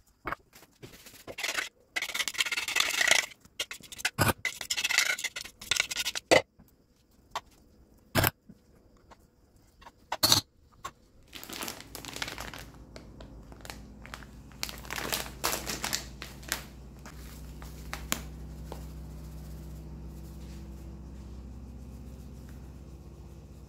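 Rustling and crinkling of a plastic packet and scraping against a glass dish while grated coconut is shaken over the tiramisù's cream layer, with a few sharp knocks in the first half. A faint steady hum comes in about halfway.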